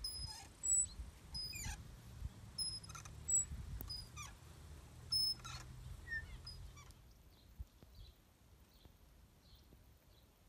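Birds calling outdoors with short, steeply falling chirps and brief high notes over a low rumble. About seven seconds in, these give way to quieter, faint short calls repeating about every half second.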